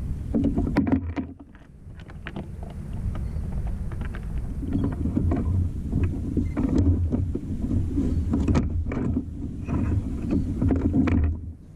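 Low rumble of wind and water around a kayak at sea, with scattered light clicks and knocks.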